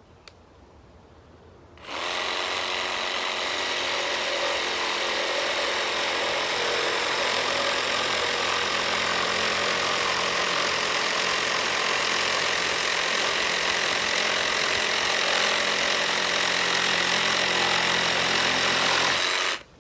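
Makita 12-volt cordless jigsaw with a Diablo fast-cutting wood blade, orbital action off, sawing through quarter-inch scrap wood. It starts about two seconds in, runs steadily for about seventeen seconds and stops abruptly.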